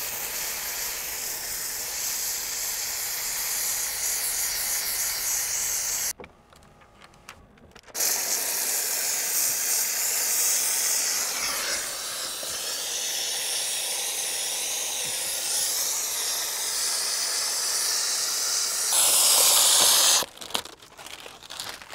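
Handheld steam cleaner jetting steam onto car window glass to loosen the tint film's adhesive, a steady hiss. It cuts out for about two seconds around six seconds in, then runs again, a little louder just before it stops near the end.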